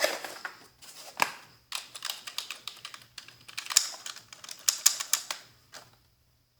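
Computer keyboard keys being pressed in quick runs of clicks that stop about six seconds in.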